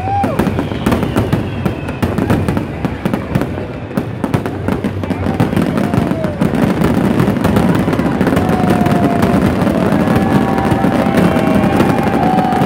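Fireworks display: a dense, rapid run of bangs and crackles that grows thicker and louder in the second half, with faint steady tones over it near the end.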